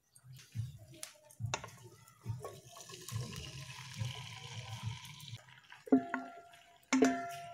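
Shredded cabbage tipped into hot oil in a non-stick wok, sizzling with a hiss from about three seconds in until just past five seconds. A few bright, knocking music notes come in near the end.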